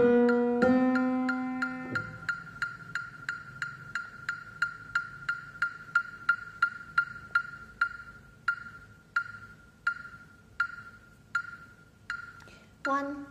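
Piano playing middle C and the B just below it in alternation, each note held, stopping about 2 seconds in. Then a series of sharp, ringing clicks, about three a second at first, slowing and fading to about one every 0.7 seconds; piano notes start again near the end.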